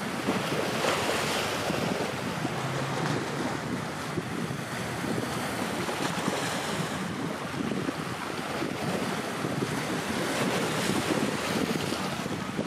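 Wind buffeting the microphone over choppy sea water, a steady rushing noise that swells and eases.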